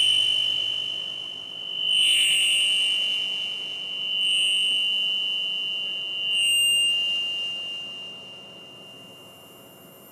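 High, steady electronic tone made on an audio mixer, like a shrill whistle or alarm. It swells louder four times, about every two seconds, then fades away near the end.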